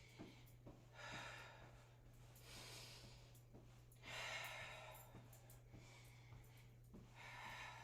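A woman breathing hard, about four long, audible breaths a second or two apart, winded after a jogging interval. A faint steady hum runs underneath.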